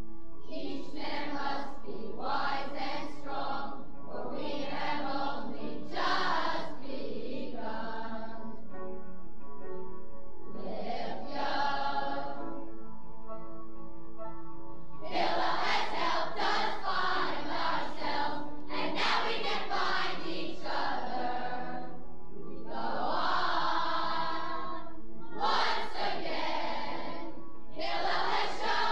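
A group of summer campers singing a camp team song together in chorus, sung phrases broken by short pauses of a couple of seconds, played back from a 1979 vinyl LP.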